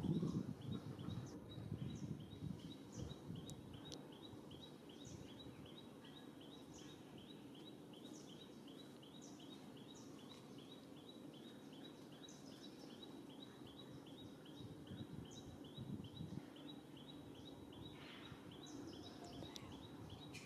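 Woodland ambience: a bird repeats a short high chirp about three or four times a second, with other higher chirps now and then, over a low background hum. A brief low rumble comes at the very start.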